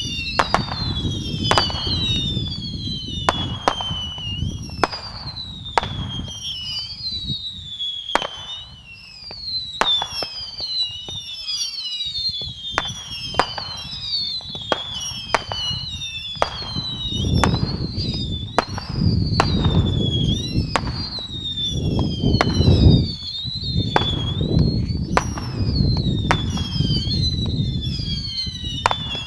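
Cosmic Moon Missile firework cake firing a long rapid string of whistling missiles: a sharp pop about every second, each followed by a whistle that falls in pitch, many of them overlapping.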